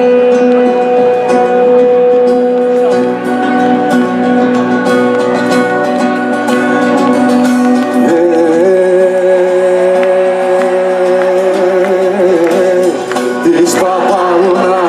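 Live Greek folk music: a laouto (Cretan lute) is plucked over long held notes. About eight seconds in, the melody moves to a higher, wavering line, and a man sings along.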